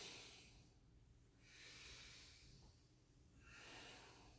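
Faint breathing through the nose, three slow breaths about two seconds apart.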